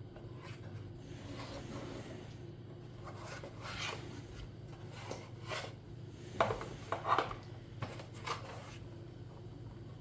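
Hands handling objects: rubbing and scraping, then several sharp clicks and knocks in the second half, over a steady low hum.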